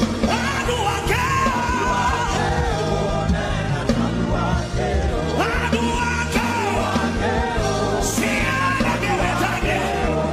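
Live gospel chant song: voices singing a repeated chant line into microphones over band accompaniment with a steady beat.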